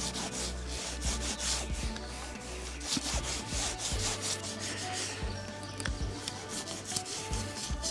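Toothbrush scrubbing soapy water into the bead of a knobby off-road tire where it meets the rim, quick repeated brushing strokes; the soap lubricates the bead so the tire can be reseated.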